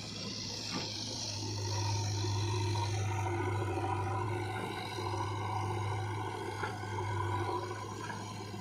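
Diesel engine of a backhoe loader or tractor running with a steady hum, a little louder through the middle, with a couple of faint knocks.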